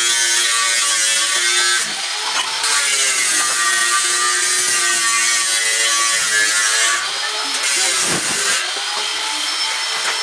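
Angle grinder with a cutting disc running and cutting through thin light-gauge steel channel, a continuous high whine whose pitch sags briefly about two seconds in and again around seven to eight seconds as the disc bites into the metal. The cuts are notches in the channel's side so it can be bent into a frame.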